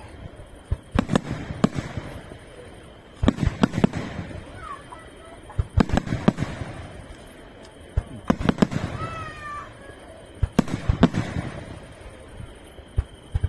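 Aerial fireworks display: shells bursting in clusters of sharp bangs every two to three seconds, each group followed by a rolling echo.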